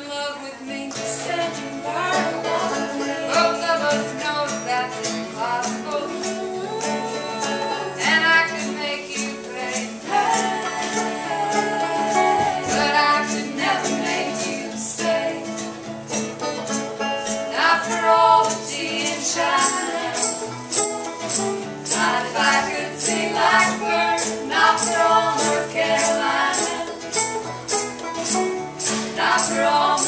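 Live acoustic folk music: banjo and acoustic guitar strumming a steady rhythm under several women's voices singing in harmony. A bright hand-percussion rattle keeps time from about two-thirds of the way in.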